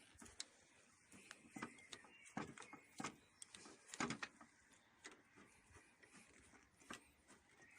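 Faint, scattered clicks and taps from the Howard 350's clutch cable and handlebar lever being handled and adjusted.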